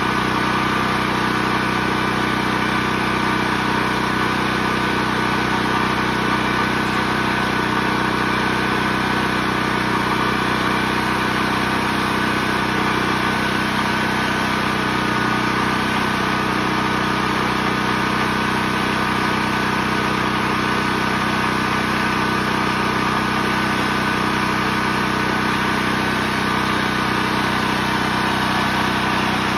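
Portable gasoline generator's engine running steadily at constant speed, a fixed-pitch hum that doesn't change.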